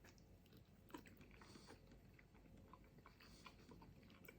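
Faint chewing of a piri piri chicken wing, with scattered small mouth clicks.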